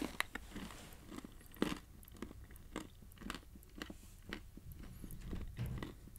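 A person chewing a mouthful of trail mix close to a microphone: irregular crisp crunches as the nuts break, the loudest about a second and a half in.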